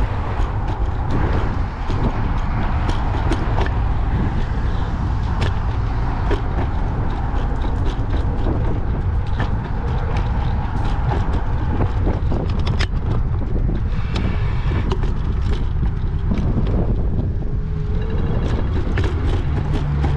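Steady rush of wind and road noise on a moving rider's microphone, with street traffic and scattered short clicks and rattles.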